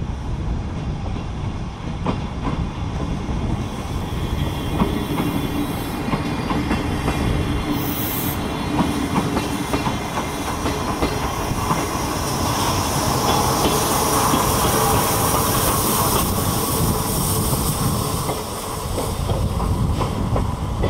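Steam-locomotive-hauled train of two 14-series passenger coaches passing slowly through yard track: steel wheels clacking over rail joints and points, with a high wheel squeal loudest in the second half.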